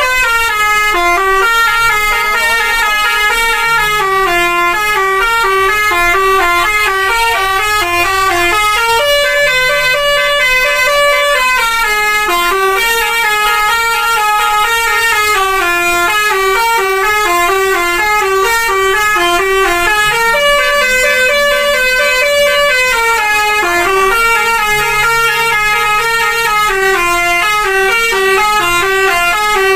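Indonesian 'telolet' multi-tone bus horn playing a long, fast melody of short stepping notes that run up and down without a pause, over a lower steady tone that shifts pitch now and then.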